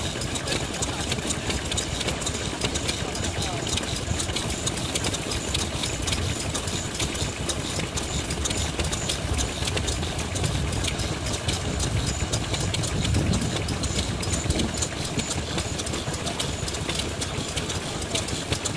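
Vintage Japanese kerosene stationary engines (sekiyu hatsudoki) with open flywheels running, a steady rapid clatter of firing.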